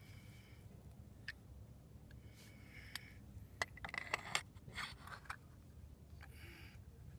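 Metal clicks and scrapes as a Honda Elite 50's variator, rollers inside, is slid onto the splined crankshaft and pressed home. There are a few single clicks, then a quick run of clinks and scrapes from about halfway through as the plate settles.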